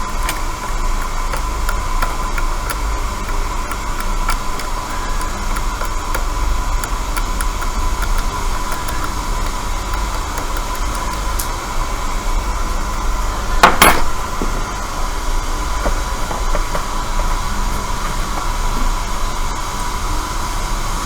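Hot air rework station blowing steadily, with a thin steady whine, while the chip is heated off the board. There is one brief sharp clatter about two-thirds of the way through.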